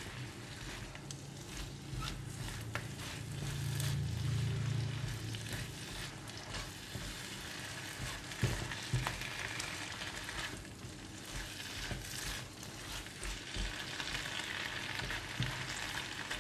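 Cabbage and luffa sizzling in a non-stick wok while a silicone spatula stirs and turns them, with repeated scrapes and light knocks of the spatula against the pan.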